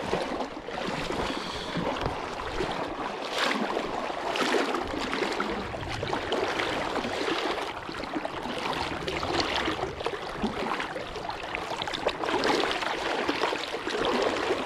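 Water of a shallow stream rushing and burbling over rocks, steady with uneven swells.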